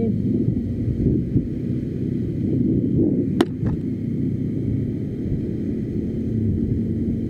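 Motorcycle on the move: a steady low rumble of engine and wind on the microphone, with two sharp clicks about three and a half seconds in, the first much louder.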